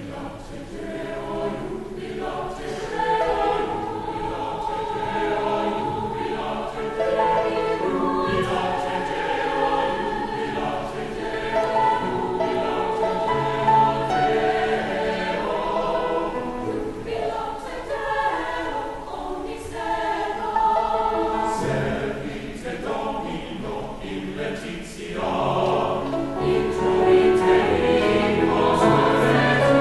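Mixed choir of men's and women's voices singing in harmony, swelling louder near the end.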